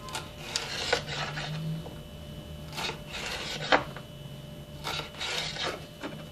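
Kitchen knife slicing a red pepper into thin julienne strips on a wooden cutting board. The blade rasps through the pepper and against the board in a few short, irregular strokes.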